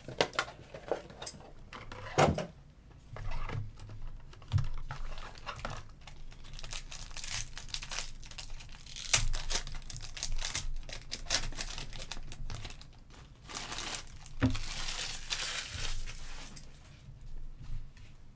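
Foil wrapper of a trading card pack being torn open and crinkled by hand, in several crackling spells with sharp clicks and taps between them.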